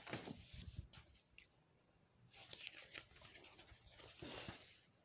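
Faint rustling of a paper activity book's pages being turned by hand, in three short bouts.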